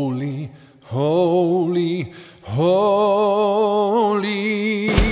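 A male voice sings three long held notes that waver in pitch, with short breaks between them. Near the end, struck sounds come in as the backing music fills out.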